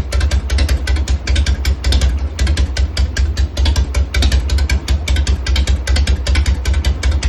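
Harley-Davidson Shovelhead V-twin engine idling steadily with a fast, even train of exhaust pulses over a deep rumble, warming up on a heat cycle after a top-end rebuild.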